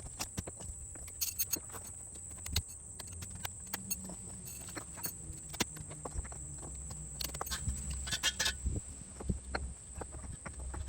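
Irregular hard clacks and knocks over a low rumble, typical of concrete pavers being handled and set down against one another.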